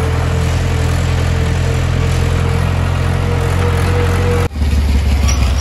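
Tractor's diesel engine running with a steady low drone. About four and a half seconds in the sound breaks off abruptly and picks up again at a lower pitch.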